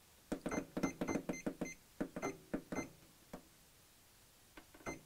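Butterick Signature EB6100 sewing machine's program buttons pressed over and over, each press giving a short electronic beep with a click, as the stitch number is scrolled. There is a quick run of about four beeps a second, a pause about three seconds in, then a few more near the end.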